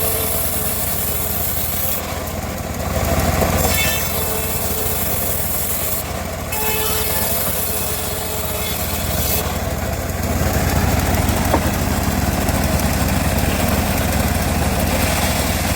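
Homemade bandsaw sawmill running with a steady, loud hum, a little louder from about ten seconds in.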